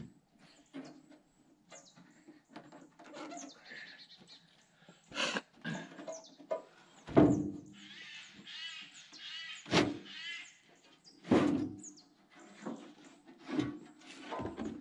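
A series of irregular knocks or thuds, about six spaced a second or two apart, the loudest about seven seconds in. Faint chirping is heard between them.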